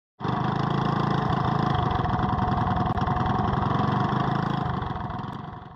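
Small engine running steadily, fading out near the end.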